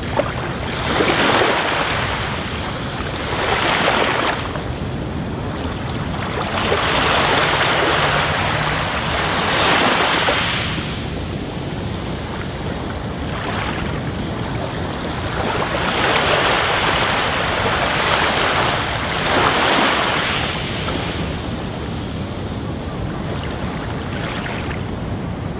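Aquarium air bubbles and water at the tank surface, a steady hissing wash that swells louder for a second or two every few seconds.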